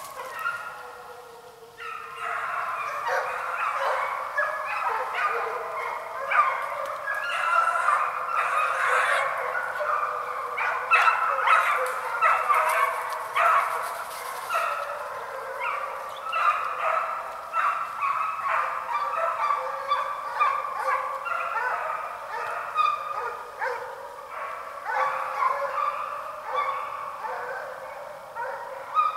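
A pack of deer hounds in full cry: many overlapping barks and bawls, kept up from about two seconds in, as the dogs run a deer.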